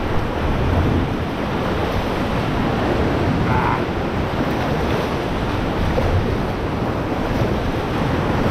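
Sea swell washing and breaking against the rock around a sea kayak at a cave mouth, with wind rumbling on the microphone.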